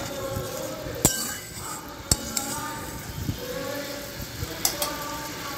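A metal spatula stirring in a metal kadai, clinking and scraping against the pan. There are several sharp clinks, about a second apart at first and two in quick succession near the end.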